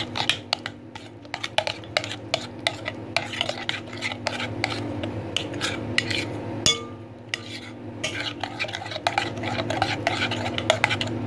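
Spoon stirring a thick green herb paste and yoghurt marinade in a glass bowl, with frequent short clinks and scrapes against the bowl.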